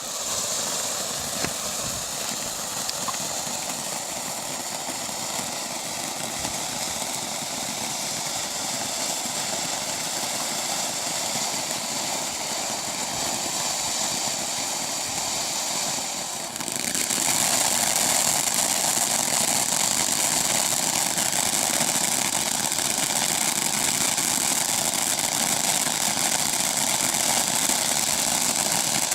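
Ground fountain firework spraying with a steady, rushing hiss that steps up louder a little over halfway through.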